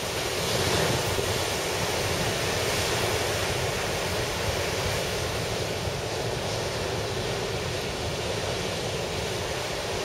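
Heavy storm surf in strong wind: rough seas surging and breaking against a harbour breakwater, a steady rushing noise, with wind rumbling on the microphone.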